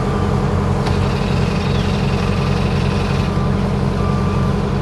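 Large motor yacht's engines running at a slow, steady cruising speed: a deep, even drone.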